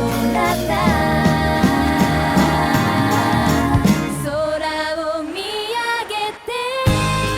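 Background pop song with a sung melody over a full band. About four seconds in the beat and bass drop out, leaving mostly the voice, and the full band comes back in near the end.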